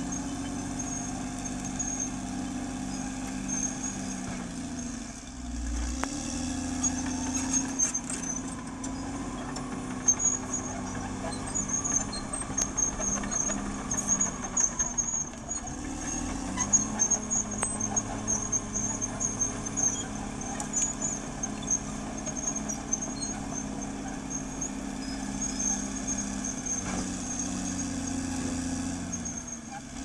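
Caterpillar D6R XL crawler bulldozer's diesel engine running under load as the machine works the dirt, with occasional clanks. The engine note dips and picks up again about five seconds in and again around sixteen seconds, as the dozer changes between pushing and backing up.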